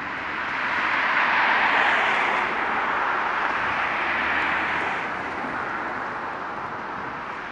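Road traffic: a vehicle passing on the street, a rush of engine and tyre noise that swells to its loudest about a second and a half in and fades away after about five seconds.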